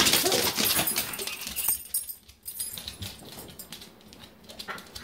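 A dog suddenly barks loudly at the window, a loud outburst lasting about two seconds. It is followed by a run of quieter clicks and knocks.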